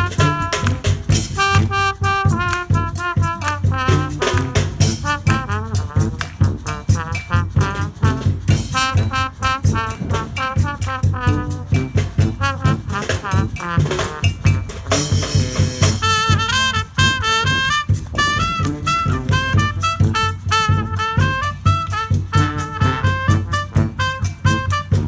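Street brass band playing live: horns and saxophones carry moving melody lines over a steady marching drum beat, with a brief wash of noise about fifteen seconds in.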